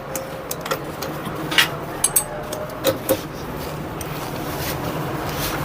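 Traffic noise slowly growing louder, with a few light metal clicks as a spanner and holder tool are set on a motorcycle's magneto nut.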